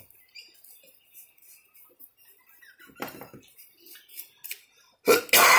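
Plastic garden-hose connector fittings being handled and pushed together on a tap outlet: small scattered clicks and rattles of hard plastic, a short clatter about three seconds in, then a loud sudden burst of noise near the end.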